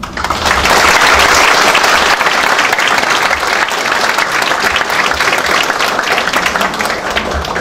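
Audience applauding, a dense stretch of many hands clapping that is loudest in the first couple of seconds and eases a little toward the end.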